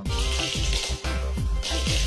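Background music with a steady, repeating bass line, with an even hiss laid over it.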